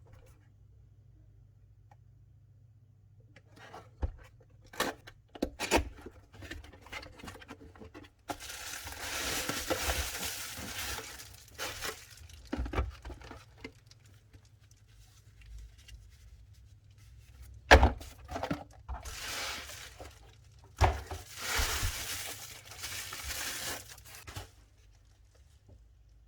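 Unboxing handling of a lens's packaging: scattered clicks and knocks, two stretches of rustling and tearing of the wrapping lasting a few seconds each, and one sharp knock in between.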